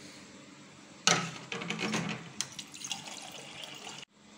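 Water running from a water dispenser's tap into a stainless steel tumbler, starting about a second in with splashing on the metal and stopping abruptly near the end.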